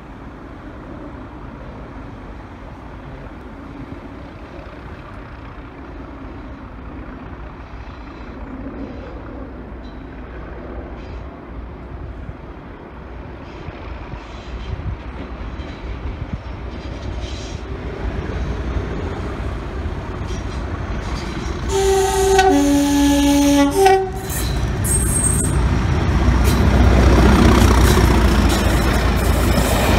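Pair of Class 37 diesel-electric locomotives with English Electric engines approaching and passing under power: a low engine rumble builds steadily. About three-quarters of the way through, the horn gives three short tones, higher, lower, then higher again. Then the engines thrash loudly as they go by.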